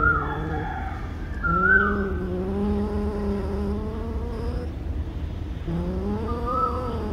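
Domestic cat growling while it eats a piece of chicken: long, wavering, droning growls, one held for about three seconds and another starting near the end. It is a possessive warning over its food.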